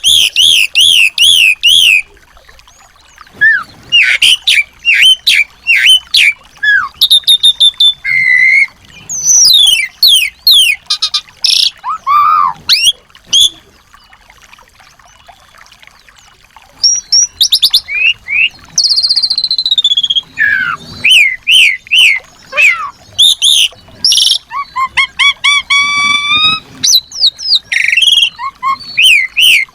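Small songbirds singing and calling in many different phrases: fast repeated chips, rising and falling whistles, rapid trills and buzzy notes, in bursts with short pauses between them.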